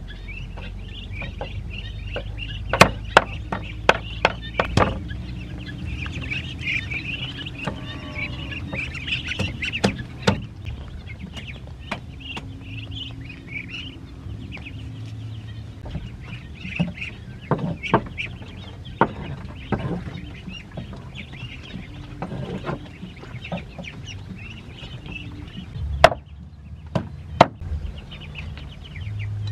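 Knife blade striking a wooden chopping board in scattered sharp knocks, with a couple of the loudest strikes near the end, over continual high peeping and calling from a flock of ducks and ducklings.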